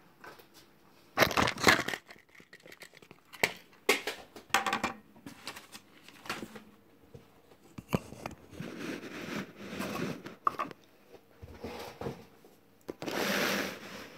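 Handling noise: irregular rustling, scraping and a few light knocks as the recording phone is picked up, moved and set down over a table, with craft materials put in place. The loudest rustles come about a second in and again near the end.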